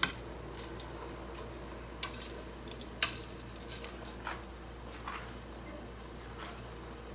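A metal utensil knocks and clinks against the side of a stainless steel stockpot while spaghetti is stirred in boiling water. There are several sharp knocks, the loudest about three seconds in, over a steady low hum.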